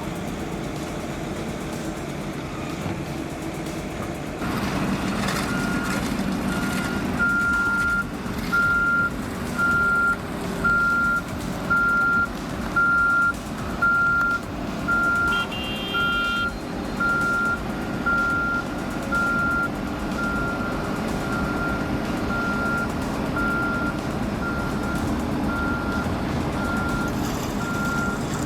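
Reversing alarm on a heavy construction truck, beeping steadily at one pitch about one and a half times a second, over the running engine of the heavy equipment. The engine grows louder about four seconds in, the beeping starts just after, and the beeps fade toward the end.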